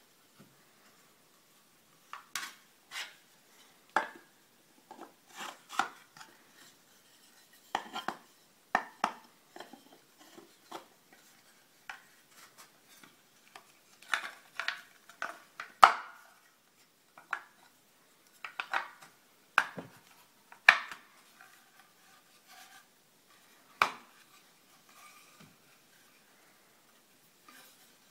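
Interlocking wooden boards of a sashimono-style joined stand knocking and clacking together as they are slid into their slots and fitted by hand. The knocks come at irregular intervals, with a couple of sharper, louder ones about midway and again about three quarters through.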